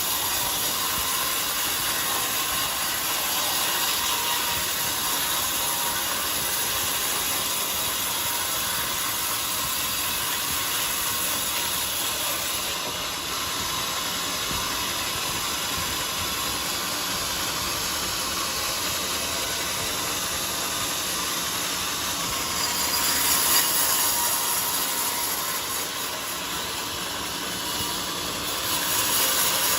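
Band sawmill running, its blade sawing through a jackfruit log with a steady hissing noise. About 23 seconds in it briefly gets louder and brighter.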